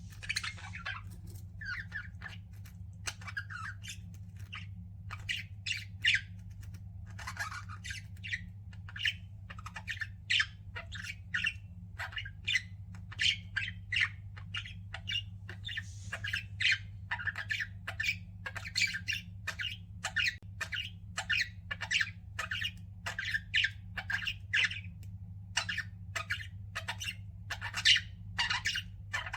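Pet budgerigars chattering, with many short squawks and chirps in quick succession, over a steady low hum.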